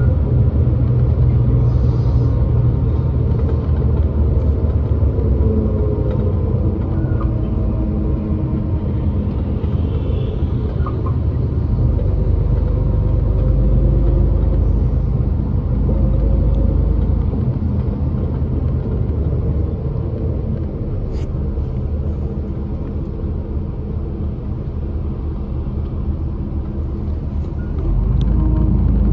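Bus engine and road rumble heard from inside the cabin as the bus drives, a steady low drone with one faint click about two-thirds of the way through.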